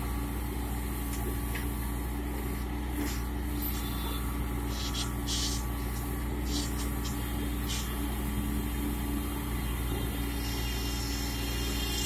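Bobcat skid-steer loader's diesel engine running steadily at a constant pitch while it works a backhoe attachment in a drain, with a few short hissing bursts over the top about halfway through.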